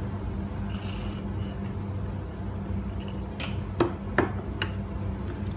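Sugar being spooned out of a plastic container: a short scraping rasp of the spoon about a second in, then a handful of sharp clicks and taps of spoon, lid and containers between about three and four and a half seconds in. A steady low hum runs underneath.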